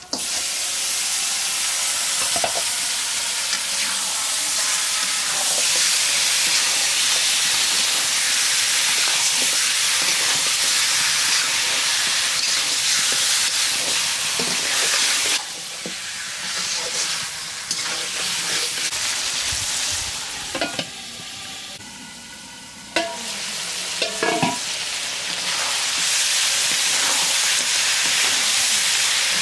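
Raw beef pieces sizzling in hot oil and spices in an iron karai, starting at once as the meat is tipped in, while a metal spatula stirs and scrapes with occasional clinks against the pan. The sizzle eases for several seconds about halfway through, then flares up again.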